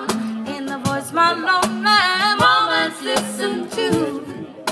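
Music: a female vocal trio singing in harmony over light instrumental backing, fading near the end.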